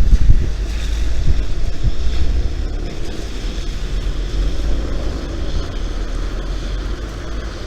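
Strong snowstorm wind blowing in a steady low rumble with gusts, the loudest gust right at the start.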